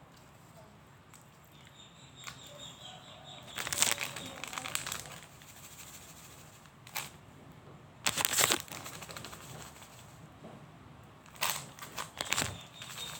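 Three bursts of crunching, crinkling noise with a short click between them, typical of close-miked mukbang eating sounds.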